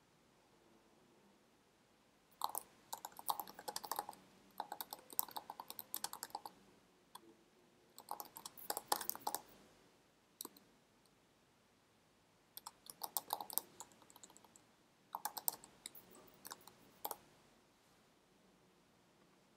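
Computer keyboard typing in about five short bursts of rapid key clicks, with quiet pauses between them.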